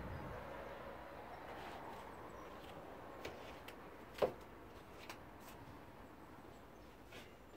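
Bee buzzing faintly as it flies low over potted soil, the buzz fading over the first couple of seconds; then a few small sharp clicks, the loudest about four seconds in.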